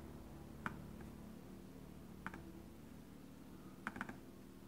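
Faint computer mouse clicks: a single click about two-thirds of a second in, another a little over two seconds in, and a quick double click near the end, over a low steady hum.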